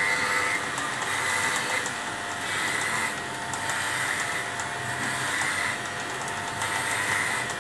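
Corded electric pet clippers running steadily, a buzzing motor hum that swells and eases every second or so as the blades are worked through a St. Bernard's thick coat to shave it down.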